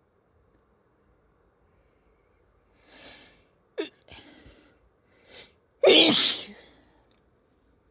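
A person sneezing twice, each sneeze preceded by a breathy in-breath. The first sneeze, about four seconds in, is short and sharp. The second, about six seconds in, is the loudest and longest.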